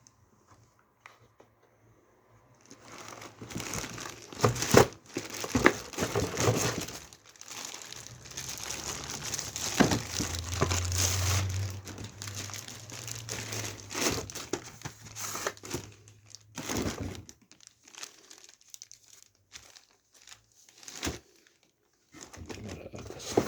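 Plastic packaging crinkling and rustling in irregular bursts with sharp handling clicks, as PC liquid-cooler parts are unpacked and handled. It starts about three seconds in, with a low hum under it for a few seconds midway, and thins out to scattered handling noises after about seventeen seconds.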